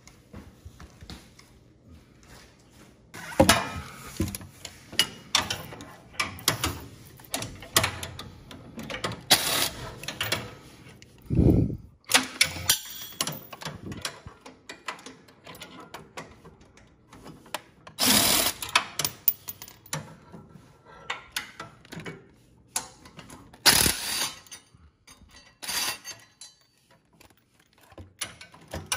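Power drill driving a 16 mm socket on an extension, spinning loosened engine mounting bolts out of a lawn tractor frame in several short runs, with metal clanks and rattles of the socket and tools in between.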